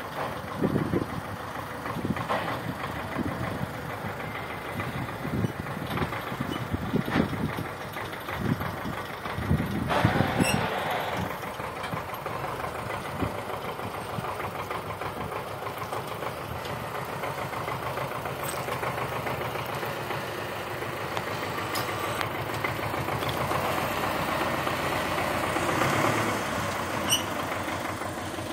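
Wheeled tractor's diesel engine running, its note swelling and easing as it drives and works the front loader; loudest about ten seconds in.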